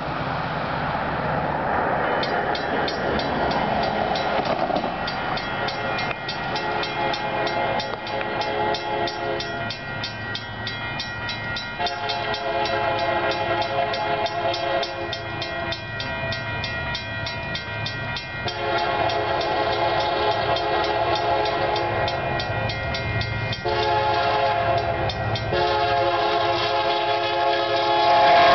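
Union Pacific freight locomotive's horn sounding a series of blasts for a grade crossing, mostly long with a short one near the end, loudest at the end as the locomotive reaches the crossing. Under it a crossing bell rings rapidly from about two seconds in, over the low rumble of the approaching train.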